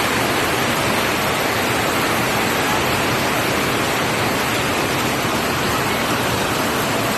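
Floodwater from an overflowing stream rushing past in a loud, steady, unbroken torrent.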